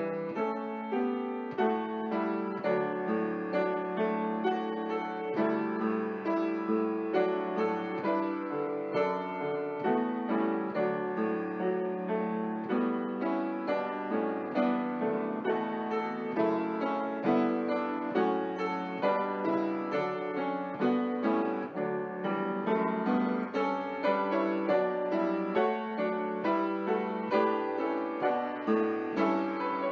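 Piano playing a steady instrumental piece, its notes struck one after another in an even flow.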